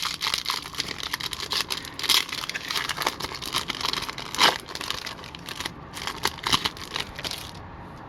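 Hockey card pack wrapper being torn open and crinkled, with dense crackling and sharp crinkles that stop about seven and a half seconds in.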